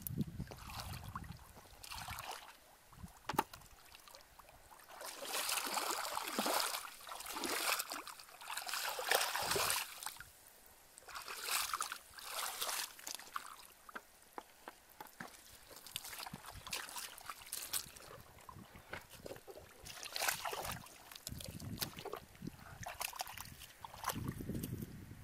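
Bare feet wading through shallow muddy water, sloshing and splashing in irregular bursts.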